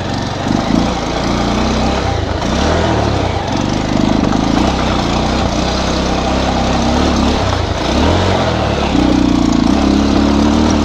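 Bajaj Pulsar 220 motorcycle's single-cylinder engine, heard from the rider's seat while it is ridden over rough dirt. Its pitch keeps rising and falling as the throttle is opened and closed, with steady wind and road rumble underneath.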